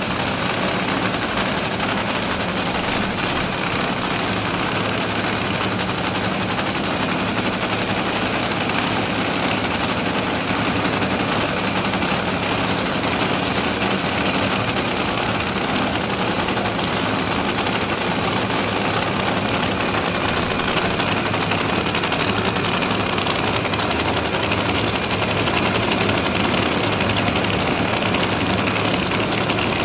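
Supercharged nitromethane-burning V8 engines of a Funny Car and a Top Fuel dragster idling during the pre-race warm-up, a loud, steady, rapid crackle.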